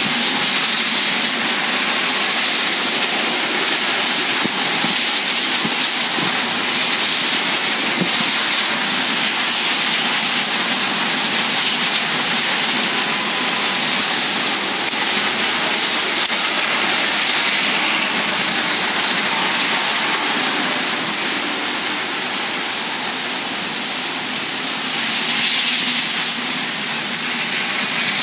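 Heavy thunderstorm rain pouring down in a dense, steady hiss that swells a little now and then, with no thunder.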